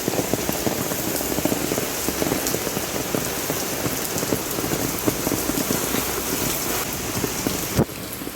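Heavy rain falling and pattering on the ground in a steady hiss of many small drop hits. A single sharp knock comes near the end, after which the rain sounds slightly quieter.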